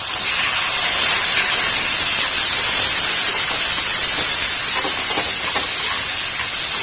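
Chopped tomatoes going into hot sesame oil with sautéed onions in a kadai, setting off a loud sizzle that starts suddenly and holds steady.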